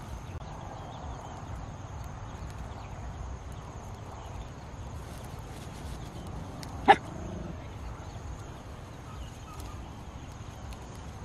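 A dog gives a single short, sharp bark a little past the middle, over steady low background noise.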